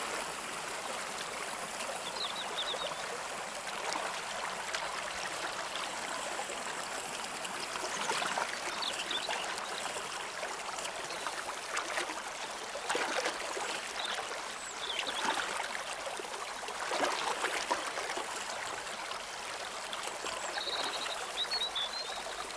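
Shallow stream rushing and babbling over stones in a steady flow, with brief high chirps about four times.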